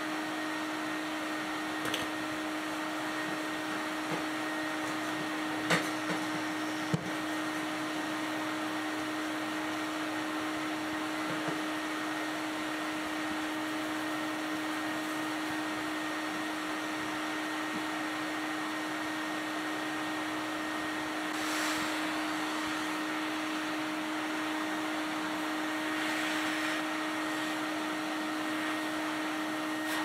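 A 1970s–80s Electrolux Ultralux canister vacuum cleaner runs steadily with a constant motor whine while its hose attachment is in use. A few sharp knocks come in the first several seconds, and two brief louder hissing surges of air come later on.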